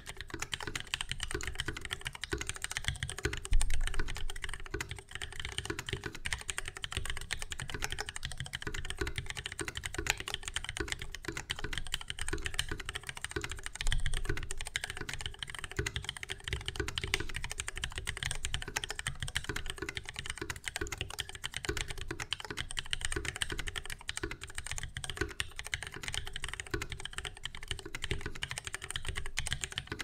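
Fast, continuous typing on a Mechmini2 mechanical keyboard with lubed vintage Cherry MX Black linear switches and a 2 mm copper plate: a steady stream of key clacks, with two louder hits a few seconds in and near the middle.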